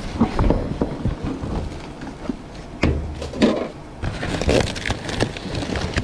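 Rustling and knocking of trash being shifted around inside a dumpster: plastic garbage bags and cardboard boxes moved by gloved hands, in irregular scrapes and clicks, with a dull thump about three seconds in.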